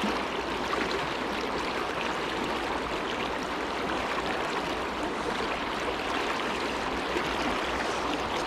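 Steady, even rush of fast-flowing river current around a wading angler.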